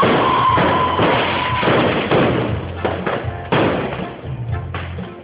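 Fireworks going off, several sharp thuds at irregular intervals of about a second, over background music.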